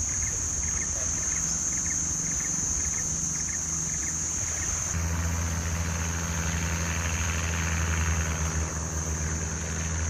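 A motorboat engine running steadily as a low hum, stronger from about halfway through, under a constant high-pitched insect trill.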